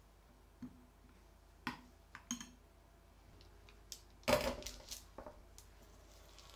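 Light clinks and taps of kitchen utensils, then a louder clatter with a short ring about four seconds in, as a metal baking tray is handled on a wooden table, followed by a few smaller taps of a spatula against the tray.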